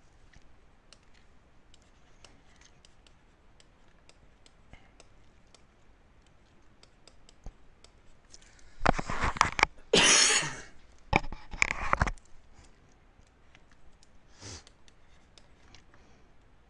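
A man with a cold coughing in three loud bursts, each a little under a second, about halfway through. Around them, faint taps and scratches of a stylus writing on a tablet screen.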